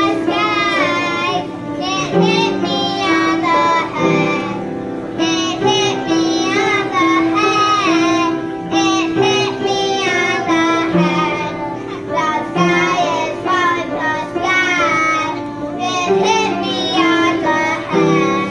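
Children singing a song together, with piano accompaniment holding chords underneath.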